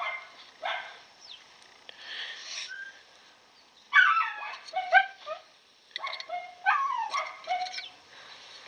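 A dog whining and yelping in several short groups of high cries that fall in pitch, the clearest about four seconds in and again from about six to eight seconds in.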